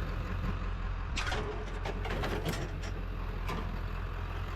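Steady low rumble of a running vehicle, with a few short, light clicks and rattles about a second in, in the middle and near the end.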